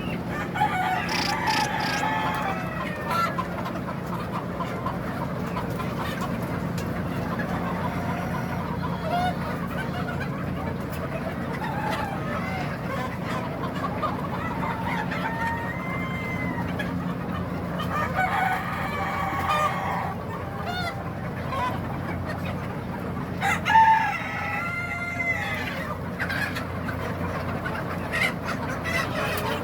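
Bantam chickens clucking, with a rooster crowing in a few bursts of calls, the loudest about two thirds of the way through. A steady low hum runs underneath.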